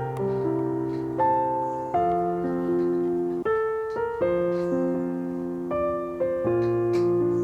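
Background music: a gentle piano melody over sustained chords.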